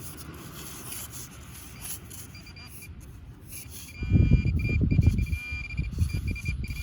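Metal detector or pinpointer sounding off on a shallow target with a high buzzing electronic tone, starting a couple of seconds in. From about four seconds a loud, rough low rumble joins it.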